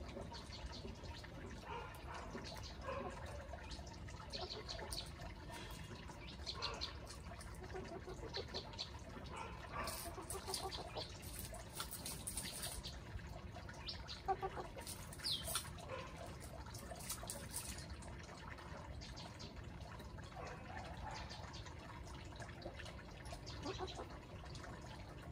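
Chickens foraging in dirt and dry leaf litter: faint, scattered scratching and pecking ticks over a low outdoor hum, with a few short high chirps around the middle.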